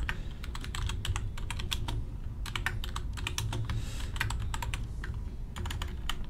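Typing on a computer keyboard: rapid, irregular keystrokes in quick runs with short pauses, over a low steady hum.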